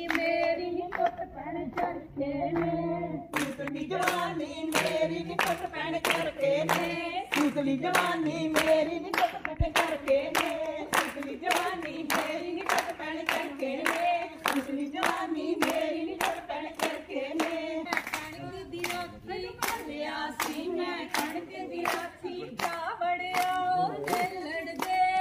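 A group of women singing a Punjabi folk song for gidda dancing together, with steady hand-clapping at about two claps a second. The clapping settles into its beat about three seconds in.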